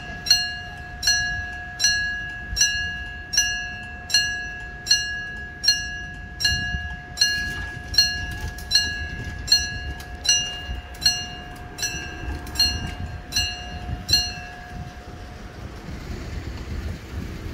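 Level crossing warning bell ringing, struck about four times every three seconds, each strike ringing on with a clear metallic tone. It stops about fourteen seconds in, leaving a low rumble.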